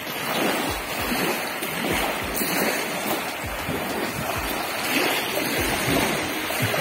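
Small river waves lapping and washing onto a pebble shore, a steady wash with irregular low rumbles of wind on the microphone.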